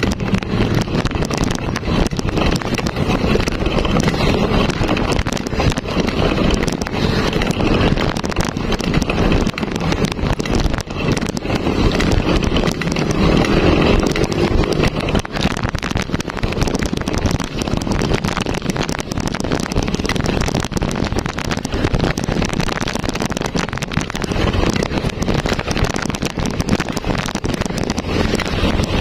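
Wind buffeting the microphone, mixed with the road noise of a bicycle climbing a steep, cracked concrete road; a dense, steady rumble with constant crackle.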